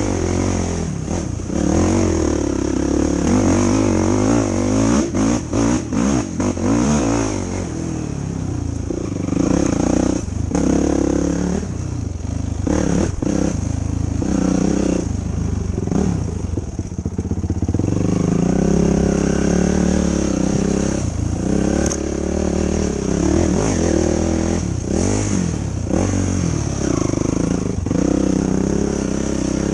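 2005 Yamaha YFZ450 ATV's single-cylinder four-stroke engine running under load, revving up and easing off again and again, with quick on-off blips of the throttle now and then.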